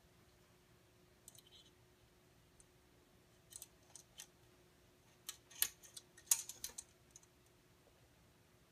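Light metallic clicks and clinks from a scale RC truck's trailer hitch and safety chains being handled, a few scattered ticks at first, then a busier run of clicks in the second half.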